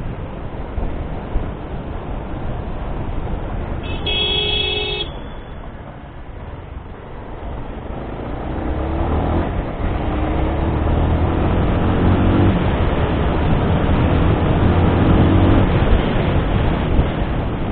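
Suzuki Hayabusa's inline-four engine pulling hard through the gears, its pitch climbing in several repeated rises from about eight seconds in, over steady wind and road noise. A vehicle horn sounds once for about a second, about four seconds in.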